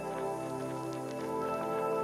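Background music with soft, long held notes.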